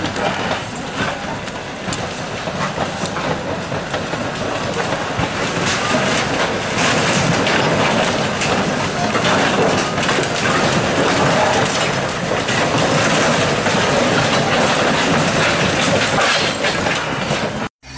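Caterpillar crawler bulldozer pushing a pile of wrecked shack debris: the tracks clatter and the corrugated metal sheets and timber crunch and scrape under the blade over the engine's running. The noise cuts out abruptly just before the end.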